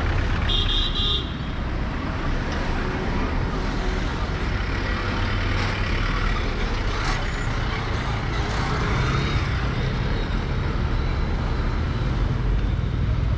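Busy city street traffic: cars, motorcycles and a truck running and passing, a steady rumble of engines and tyres. A brief high beep sounds about half a second in.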